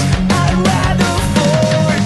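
Loud hard rock music with a driving drum beat and sustained melodic lines.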